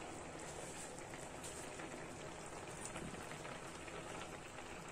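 Chicken stew simmering in an uncovered frying pan: a soft, steady bubbling with fine crackles.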